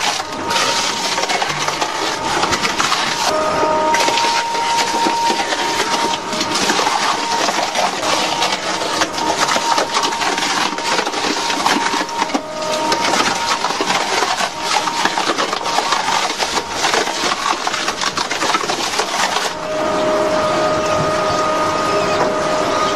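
Industrial crusher machine breaking material with constant cracking and splintering over a steady motor whine. About twenty seconds in the crackling stops and the machine runs on with a steadier hum.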